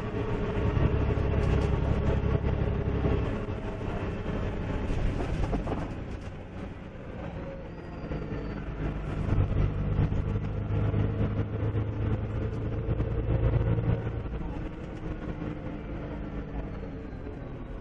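Dennis Dragon double-decker bus heard from inside the cabin while driving: a deep engine note with steady body and window rattle. The engine pulls strongly at first, eases off after about three seconds, then pulls hard again from about nine to fourteen seconds before easing once more.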